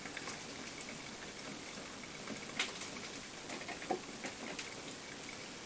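Krups XP1500 coffee maker brewing a pot of coffee: a steady hiss of hot water with scattered small crackles, and two sharper pops, one about two and a half seconds in and one about four seconds in.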